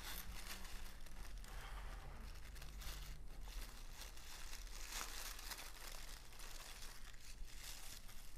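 Tissue paper being torn and pulled open by hand, crinkling and rustling continuously.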